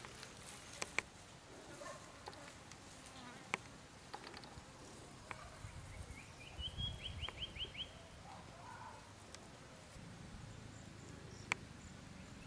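Faint outdoor ambience of buzzing insects, with a short run of quick repeated high chirps, like a bird trill, about six to seven seconds in, and a few sharp clicks.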